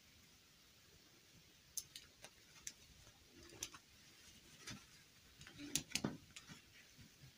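Faint, scattered taps and clicks of plastic fashion dolls being set down and arranged side by side, with light rustling of their fabric dresses as hands smooth them; the loudest taps come about six seconds in.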